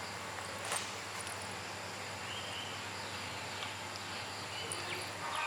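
Quiet outdoor background: a steady low hum over a faint hiss, with one short chirp about two and a half seconds in and a light tap just under a second in. The hum stops shortly before the end.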